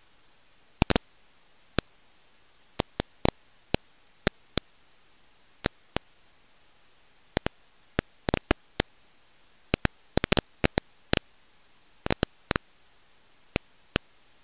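Steady faint hiss broken by irregular sharp clicks and pops, some coming in quick pairs or clusters: the crackle and surface noise of an old recording, with no other sound.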